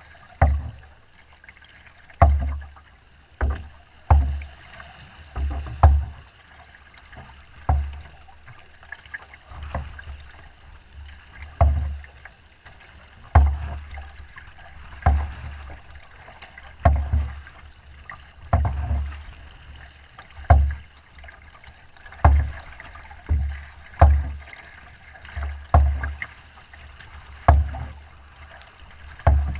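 Canoe pushing through wind-driven chop, the hull thudding against the waves with a splash about every one to two seconds and water sloshing steadily in between.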